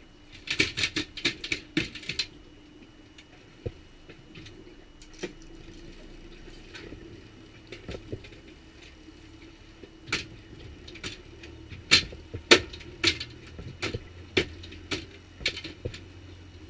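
Rapid clusters of knocks and slaps from a freshly landed salmon thrashing in the landing net on an aluminium boat's deck, in two spells, the second near the end the loudest. Underneath, a small outboard kicker motor hums steadily.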